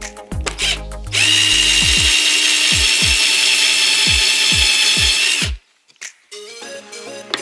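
Power drill running at steady speed with a countersink bit, cutting a countersunk hole for a flat-head screw. It starts about a second in, holds an even high-pitched whine for about four and a half seconds, and cuts off suddenly.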